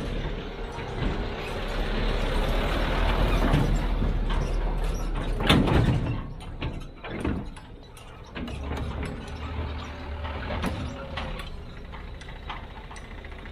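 Heavy construction machine working: a low engine rumble under repeated metallic clanks and rattles, with the loudest surge about five and a half seconds in.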